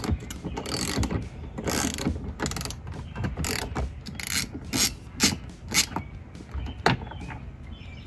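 Hand ratchet with a 10 mm socket clicking in short, uneven bursts as bolts are backed out.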